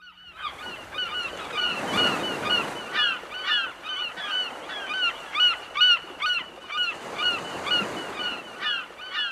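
A flock of birds honking, many short calls overlapping at several a second, over a faint hiss.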